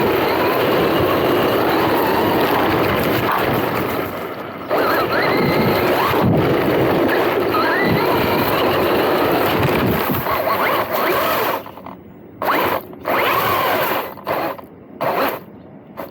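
MJX Hyper Go 16212 1/16 brushless 4WD RC car running, its motor whine rising with the throttle over drivetrain and tyre noise, then several short throttle bursts over the last few seconds.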